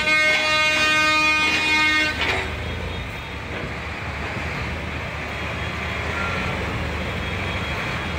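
A tractor horn sounds loud and steady, then cuts off about two seconds in. After it, the low steady rumble of diesel tractor engines running goes on.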